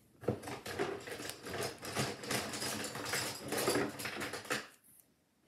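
Rummaging for colouring pencils: a quick, irregular run of rustling, scraping and small clattering knocks, which stops about four and a half seconds in.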